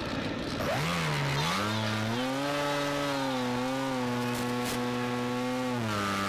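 Brushless electric motor and propeller of an RC foam plane, heard through the onboard camera's microphone: after a short rushing noise the motor comes in, its whine rising in pitch about a second in, holding steady with small wobbles as the throttle is worked, then dropping lower near the end.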